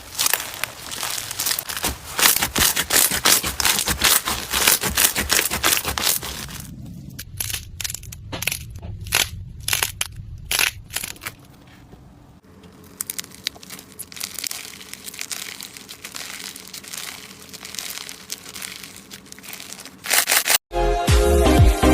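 Crunchy slime being squeezed and pressed: a dense run of crackling pops, then about eight separate sharp snaps around the middle, then softer crackling. Music starts near the end.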